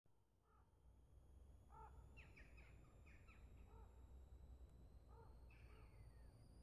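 Faint bird calls: short, separate notes, one about half a second in, a run of several between about two and three and a half seconds, and a couple more near the five-second mark, over a low steady rumble.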